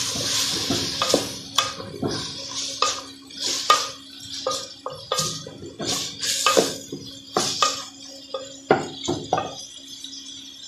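Wooden spoon stirring chicken and onions in an aluminium pot, knocking and scraping against the metal in irregular clinks that ring briefly, over a light sizzle of frying that fades within the first second or so. The stirring stops near the end.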